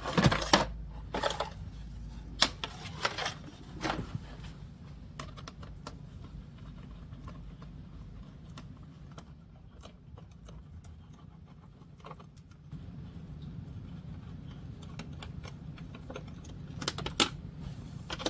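Small metal clinks and rattles of a screwdriver and loose screws being handled while the screws come out of a car's dash faceplate. There is a cluster of clicks in the first few seconds and another near the end, over a steady low hum.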